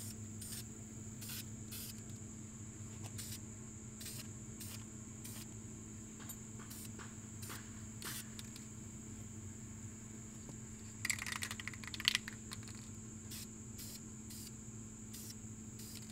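Paint going onto a brake caliper in short hissing strokes at an even pace, about one or two a second, with a brief clatter about eleven seconds in. A steady high whine and a low hum run underneath.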